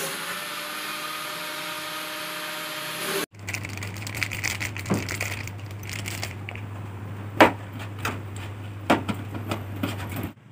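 A steady machine-like whirr that stops abruptly about three seconds in, followed by a low steady hum with scattered sharp knocks and clicks as raw fish pieces are handled and rubbed with turmeric in a steel bowl, the two loudest knocks in the second half.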